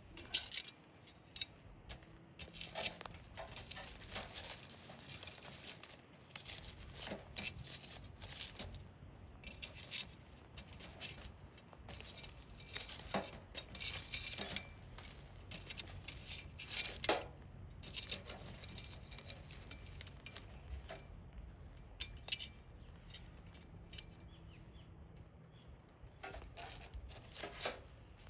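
Hardwood fire and embers crackling, with irregular sharp snaps and pops scattered throughout.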